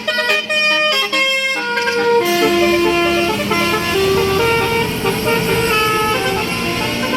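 Tour bus's multi-tone telolet basuri horn playing a quick tune of stepped, overlapping notes. About two seconds in, the bus's engine and road noise come up under the horn tune.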